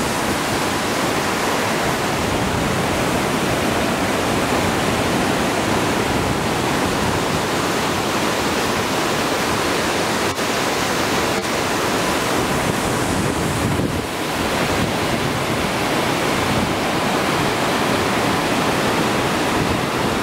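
Grossbachfall waterfall: a steady, loud rush of falling water.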